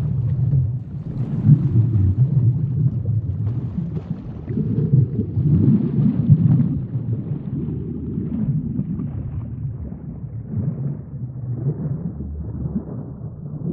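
Underwater sea ambience: a low, rolling rumble that swells and eases every few seconds, with faint crackles above it.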